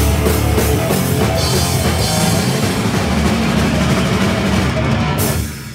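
Live punk band playing loud, with distorted electric guitars, bass and a pounding drum kit. The song stops near the end.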